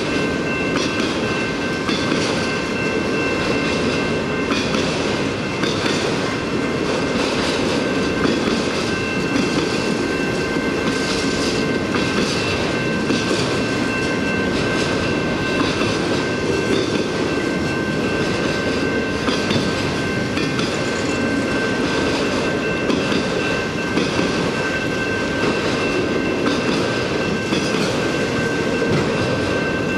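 Freight train of autorack cars rolling past at a steady speed: a continuous rumble of steel wheels on rail with irregular clicking as the wheels cross rail joints, and a steady high-pitched ring above it.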